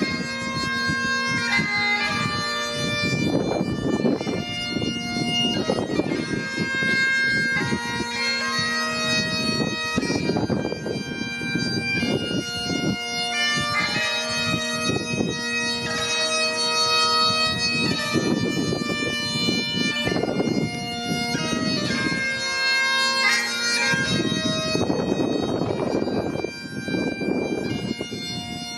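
Bagpipes playing a tune of held melody notes over their steady drones, with bursts of noisy sound coming and going underneath.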